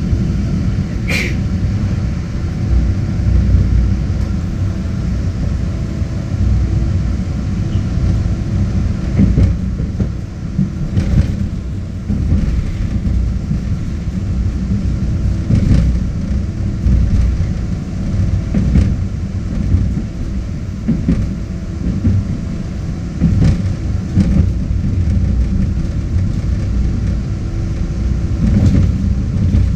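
MBTA Orange Line subway train running, heard from inside the car: a steady low rumble of wheels on rail with a faint steady hum and a few scattered knocks.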